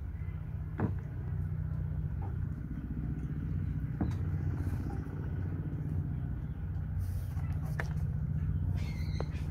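Steady low rumble, with a few short faint knocks.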